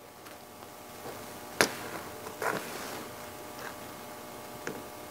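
Four light clicks and taps as a soldering iron and fingers work the lugs of a BNC connector, the first, about a second and a half in, the loudest, over a faint steady hum.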